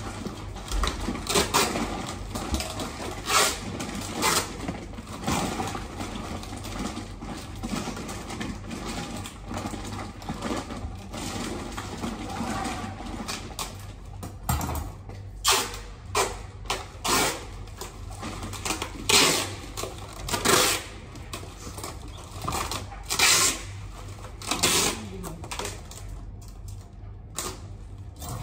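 Irregular clicks, knocks and rustling of packaged goods being handled and packed into a cardboard box. The handling is busier and denser in the first half, then becomes a string of separate, sharper knocks.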